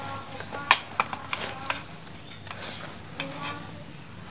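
Handling noise from an analog multimeter being picked up and moved over a metal power-supply case: a few sharp plastic-and-metal clicks and knocks in the first two seconds, the loudest about 0.7 s in, then quieter light rustling.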